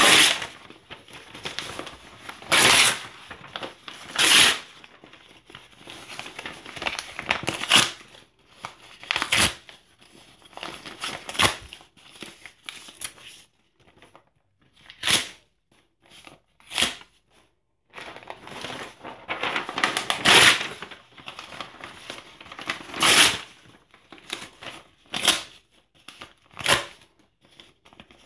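Printed paper documents being torn by hand into pieces, with crinkling of the scraps: a series of irregular sharp rips, some long and loud, with short pauses between.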